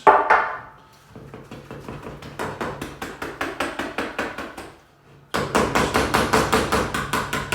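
A whisk beating thick muffin batter in a mixing bowl, knocking against the bowl in an even rhythm of about five strokes a second. A short clatter opens it, and after a brief pause near the end the knocking resumes louder.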